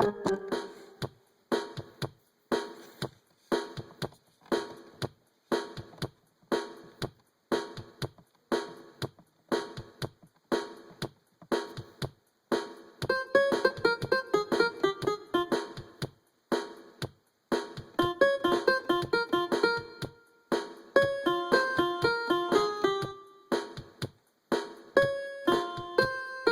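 Keyboard music: a steady pulse of short, clipped piano-like notes, joined about halfway through by a busier melody of higher notes.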